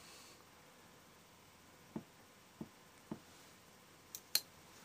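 Spyderco UKPK slip-joint pocketknife being handled: three faint taps, then two sharp clicks about four seconds in, as the knife is drawn and its blade snaps open.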